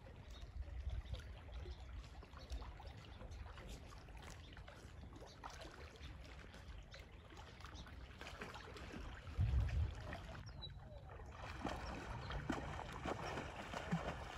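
Faint river water trickling and lapping, with low wind rumble on the microphone that swells briefly about nine and a half seconds in.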